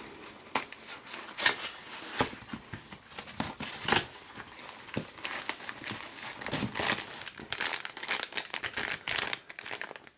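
A paper-wrapped cardboard parcel being torn open by hand: irregular crinkling and tearing of paper and cardboard, with a plastic bag crinkling as it is pulled out near the end.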